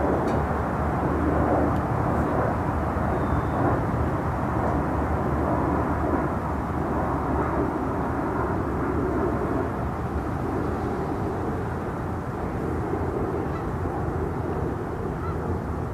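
Steady low rumble of distant vehicle noise outdoors, easing a little after about six seconds.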